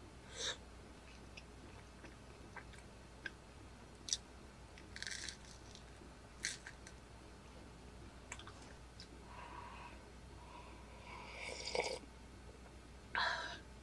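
A person eating: soft chewing and crunching with scattered light clicks and taps, coming in short separate bursts.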